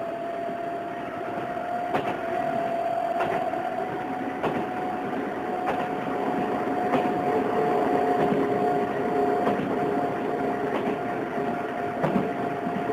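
Odakyu 8000 series electric train under field chopper control, running: its traction motors whine on a steady tone that rises slightly in pitch and then holds, with a lower second tone joining about halfway. Wheels click over rail joints every second or so above a steady rolling rumble.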